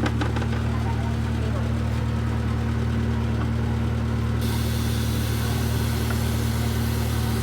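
A machine running with a steady low hum. About four and a half seconds in, a high hiss joins it.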